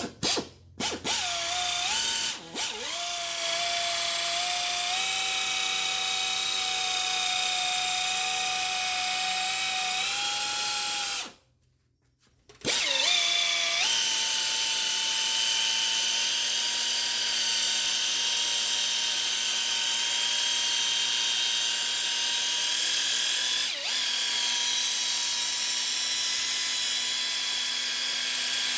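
Electric paint buffer running on the car's wet-sanded paint, polishing it out after 3000-grit sanding. The motor starts in a few short bursts, runs with a steady whine, stops for about a second a little before halfway, then starts again and runs at a slightly higher pitch.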